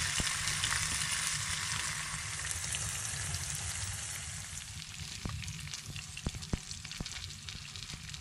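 Beef burgers with cheese and onions sizzling in a frying pan on top of a wood-burning stove; the sizzle eases a little after a couple of seconds. A few light knocks come in the second half.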